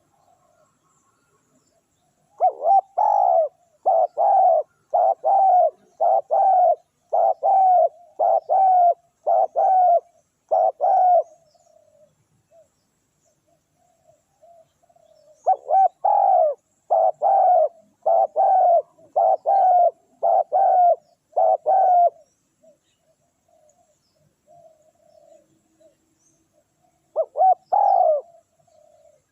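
Spotted dove cooing: a run of about eight loud, evenly spaced coos, a pause with fainter coos, then a second run of about seven, and one more coo near the end.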